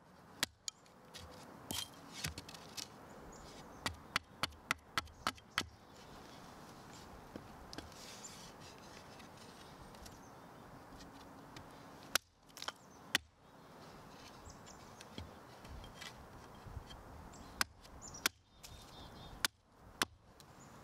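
Hatchet chopping into the end of a wooden stick held against a stump, sharpening it to a point: sharp single chops with pauses between, including a quick run of about six strokes some four seconds in, then scattered strokes.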